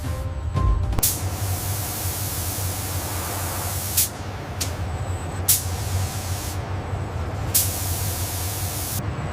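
Several bursts of loud hissing, like a spray or air jet, each opening with a sharp click, over a steady low machine hum.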